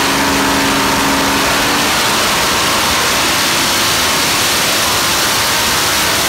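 Supercharged Chevrolet ZZ454 big-block V8, boosted by a ProCharger F1A-94 centrifugal supercharger feeding a blow-through carburetor, running loud and steady on an engine dyno.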